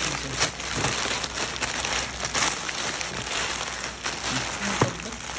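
Crinkling and rustling of plastic chocolate wrappers, KitKat multipack bags, as hands dig through a carton of chocolates, with a sharper knock near the end.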